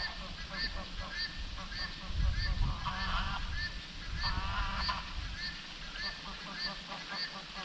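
Wild animal calls: short chirps repeated evenly about twice a second, with two short, harsh, honk-like call bouts about three and four and a half seconds in, over a low rumble.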